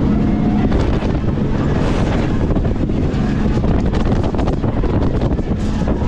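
Wind buffeting the microphone on a moving jet boat, over the steady rumble of the boat's engine; the engine's hum eases about a second in and comes back near the end.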